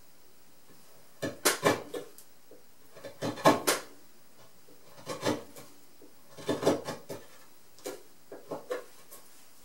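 Carving chisel pushed by hand through very hard zelkova (keyaki) wood, paring a finishing cut: bursts of short, crisp slicing and scraping strokes, five clusters in all, the loudest a little after one second and about three and a half seconds in.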